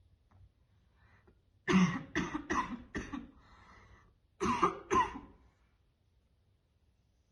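A woman's harsh, barking smoker's cough brought on by heavy vaping: a run of four quick coughs, then after a short pause two more.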